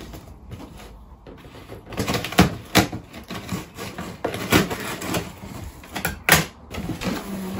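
Handling noises from opening a delivery box: a string of irregular clicks and knocks with rustling between them, the sharpest knock about six seconds in.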